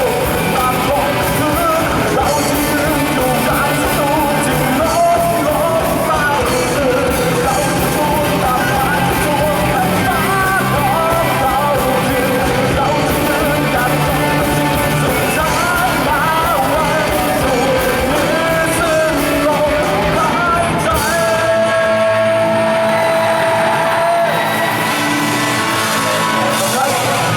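Live rock band playing with a singer: vocals over drums, bass and guitar. About three-quarters of the way through, the drums thin out under a long held note.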